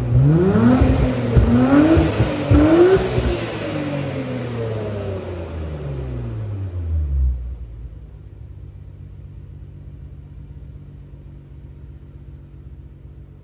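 Nissan Skyline GT-R V-Spec (BNR34)'s RB26DETT twin-turbo straight-six, breathing through a MINE's titanium Silence VX Pro muffler, front pipe and metal catalyst, free-revved in three quick blips. The revs then fall away and, about seven seconds in, it settles to a steady, quieter idle.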